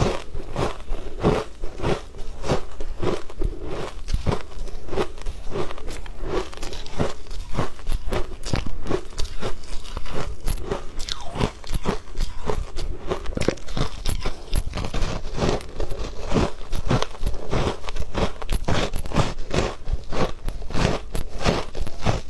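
Biting and chewing a compacted block of shaved ice: a fast, crisp run of crunches, several a second.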